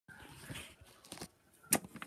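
Soft rustling handling noise, a few faint clicks, then one sharp plastic click near the end as a hand comes down on a clear-domed push-down spinning top toy.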